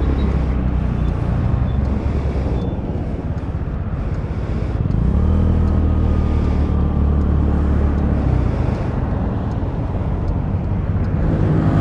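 Kymco Super 8 scooter engine running in slow traffic, picked up by a helmet-mounted microphone. It gets louder about five seconds in, as if pulling away, with road and traffic noise around it.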